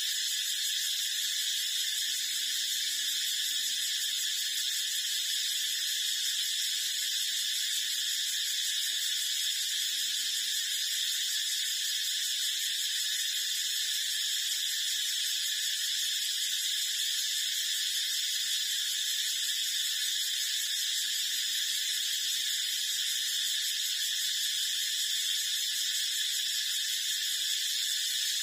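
A steady, high-pitched hiss that holds unchanged throughout, with no distinct calls or knocks standing out.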